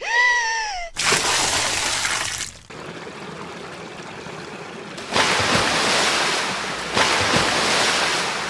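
Creek water splashing and rushing around rocks, loud from about a second in, dropping back to a steady wash, then loud again from about five seconds in. A short voiced exclamation comes just before the splashing.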